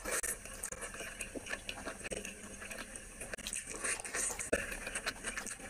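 Close-miked eating of rice and curry: wet chewing and lip-smacking with many small clicks from the mouth.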